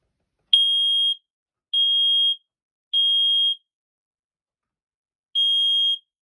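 Firex Model PB photoelectric smoke alarm sounding under test with a high, single-pitched beep in the code-3 temporal pattern. Three beeps of a little over half a second come about a second apart, then a pause, and the next round begins near the end.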